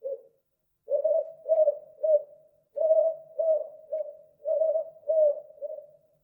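Owl hooting: a short hoot at the start, then a steady run of short, same-pitched hoots in three groups of three, about half a second apart.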